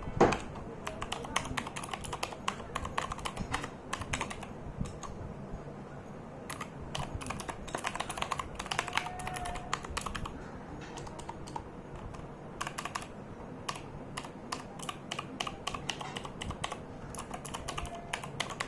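Typing on an Anne Pro 2 mechanical keyboard: irregular runs of key clacks with short pauses between them, one sharp louder clack at the very start.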